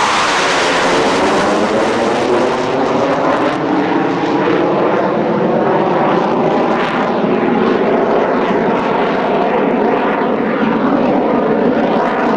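Lockheed SR-71's twin Pratt & Whitney J58 turbojets running loud and steady, a dense jet roar whose tone sweeps slowly as the aircraft moves.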